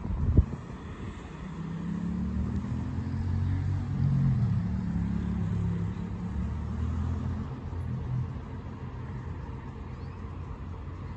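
Vintage electric tram moving slowly along its track: a low motor hum that shifts in pitch, building up and then fading after about eight seconds as the tram comes to rest. A sharp thump sounds just after the start.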